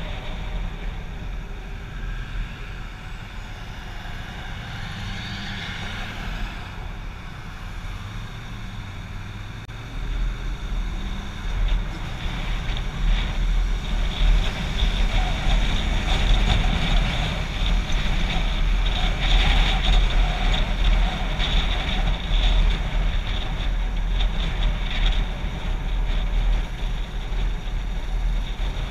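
A motorcycle riding along, its low rumble mixed with wind rushing over the microphone; it grows louder about ten seconds in.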